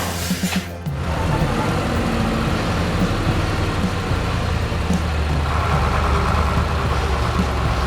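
Heavy vehicle engine running steadily with a low rumble, briefly dipping under a second in, then carrying on evenly.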